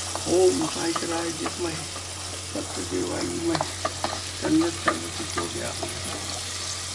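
Chopped onion and cumin seeds sizzling in hot oil in an open aluminium pressure cooker, with a spatula stirring and scraping against the pot at irregular moments. A man's low voice quietly chants mantras over it in short phrases.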